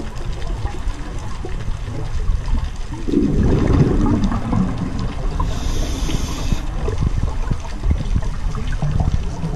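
A scuba diver's regulator underwater: a gurgle of exhaled bubbles about three seconds in, then a brief hiss of breathing in around six seconds, over a steady low underwater rumble.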